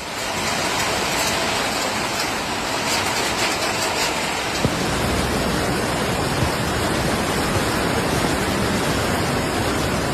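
Steady, loud rush of water: floodwater pouring through, a constant, even hiss with no letting up.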